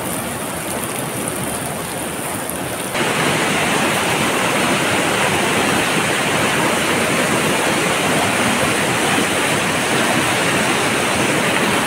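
Pork belly sizzling and spitting on a hot stone slab over a wood fire. About three seconds in, it cuts to the louder, steady rush of a fast river pouring over rocks in rapids.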